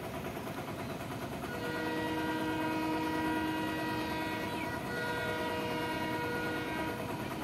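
An Indian Railways WDM3A diesel locomotive sounding its horn as it approaches. It gives a long chord of several steady tones, starting about one and a half seconds in and lasting about five seconds, with a brief dip just before the end of its first half.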